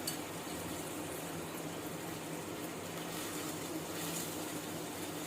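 Spicy tteokbokki sauce simmering in a pan with rice cakes in it, a steady bubbling hiss as the gravy cooks down to thicken. A faint steady low hum runs underneath.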